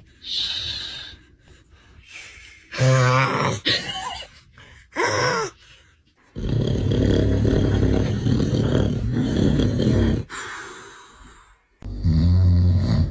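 A man snoring heavily in separate bouts with pauses between. Short groaning snorts come first, then a loud, rough snore of about four seconds, then a deep, low snore starts near the end. The snoring is rough enough to be taken for a motorbike starting.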